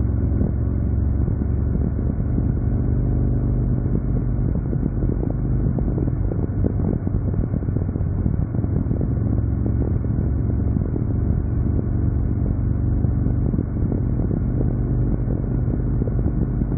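Chopper motorcycle's engine and exhaust running steadily at highway cruising speed, a deep even drone, picked up by a camera mounted on the bike.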